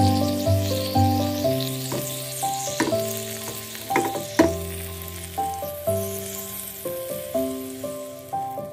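Chicken pieces sizzling in melted margarine in a nonstick frying pan, a steady hiss that fades near the end, with a few sharp clicks around the middle. Background music of plucked notes runs underneath.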